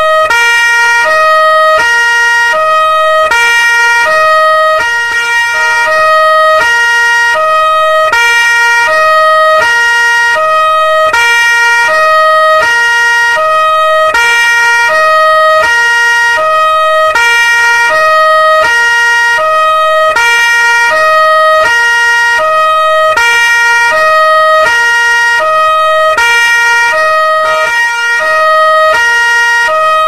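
Two-tone police siren alternating steadily between a higher and a lower note, each held about half a second.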